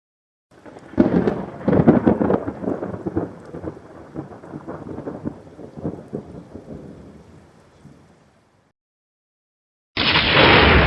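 Thunder: a rumbling peal starts about half a second in, with sharp crackles over its first couple of seconds, then rolls on and fades away over several seconds. After a short silence, another thunderclap breaks in suddenly near the end.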